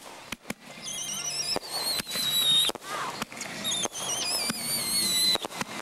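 Fireworks going off together: a dozen or so sharp bangs, with several high whistles overlapping from about a second in, each warbling and falling in pitch.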